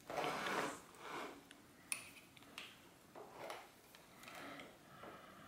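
Bicycle cable housing being handled and fed into the jaws of cable housing cutters: rustling and rubbing of the housing against hands and tool, loudest in the first second, with a light click about two seconds in.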